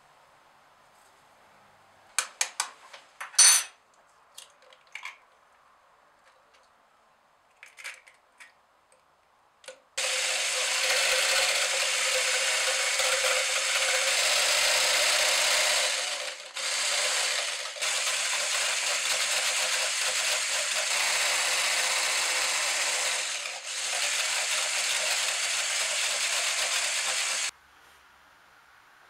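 A few sharp clicks and knocks, then an electric whisk starts suddenly and runs steadily, beating egg white to a meringue foam in a plastic measuring jug. It breaks off briefly twice and stops suddenly near the end.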